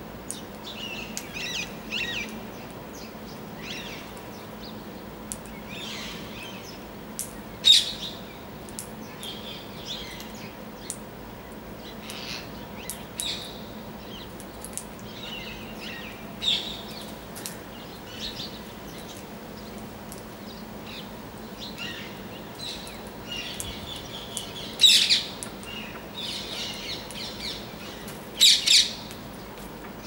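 Rose-ringed parakeets calling: scattered short chirps, with a few loud, sharp calls about 8 seconds in, about 25 seconds in and twice near the end.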